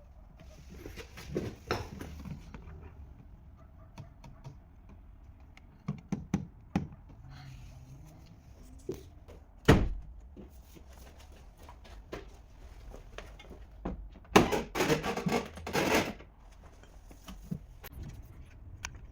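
Scattered knocks and thumps, with one loud thump about halfway through and about two seconds of louder rattling noise about three quarters in.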